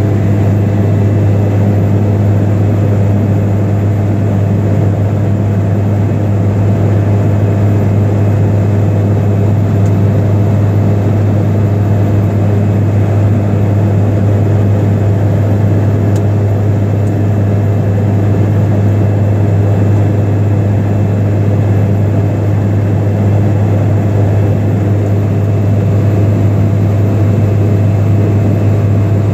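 Seaplane's engine and propeller in cruise, heard from inside the cabin as a loud, steady low drone that does not change.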